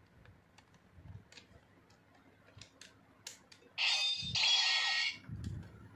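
Faint plastic clicks and taps as the DX Sakanamaru toy sword is handled in its sheath, then about four seconds in the toy plays a short electronic sound effect from its small speaker, lasting about a second and a half and changing once partway.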